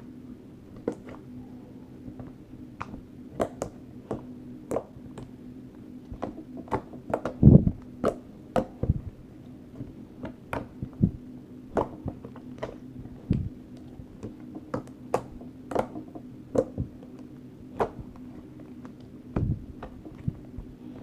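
Slime being squished and kneaded by hand, giving irregular sticky clicks and pops, loudest about halfway through, over a steady low hum.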